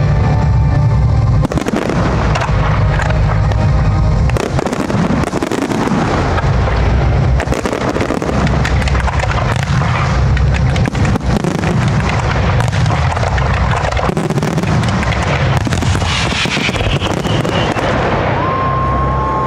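Dense fireworks barrage: many aerial shells and ground effects bursting in quick succession with bangs and crackle, over music with a heavy bass.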